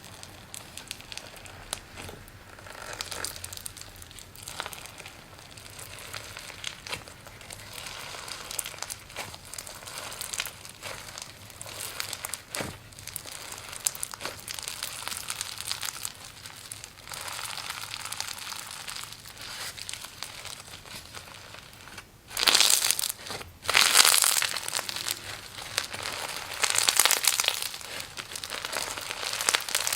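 Slime being squeezed and worked by hand, making a dense crackle of small pops and crinkles, with louder squishing bursts in the last third.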